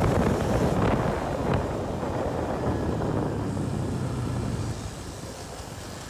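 Wind rushing over the microphone of a motorcycle riding at speed, over the low hum of its engine; the rush eases about five seconds in.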